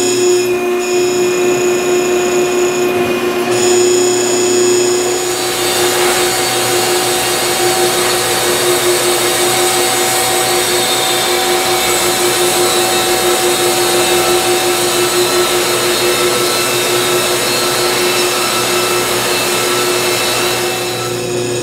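Wood-Mizer LT50 band sawmill running steadily. About five seconds in, the band blade enters the log, and the sawing adds a broad, steady hiss on top of the mill's hum; the hiss eases near the end as the cut finishes.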